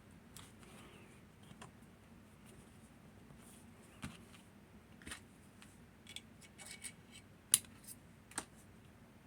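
Small sharp metal clicks and light scraping from handling a lever lock and its tools while taking it apart, scattered and growing busier in the second half, the loudest click about seven and a half seconds in.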